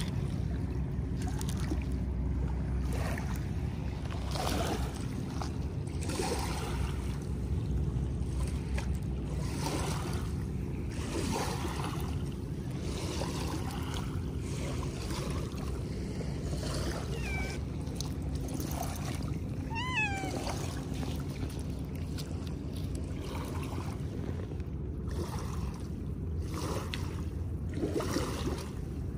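Small waves washing over a pebble shore, with a steady low hum underneath and short crackles from the stones. About twenty seconds in, a Scottish Fold cat gives one short rising-and-falling meow.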